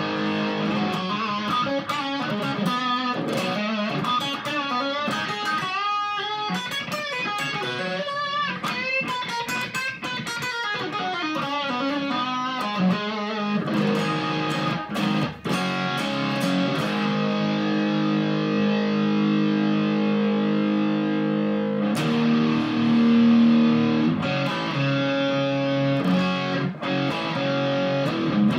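Epiphone Explorer electric guitar on its bridge pickup, played through a Cascade Pedals Black Cat Overdrive with the gain at about three-quarters on its medium mode, into a Fender Supersonic amp: a distorted lead. It starts with fast runs with bends and vibrato, then moves to long held notes about halfway through.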